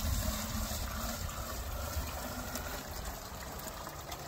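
Warm water pouring steadily from one plastic bucket into another bucket of sugar, mixing sugar syrup.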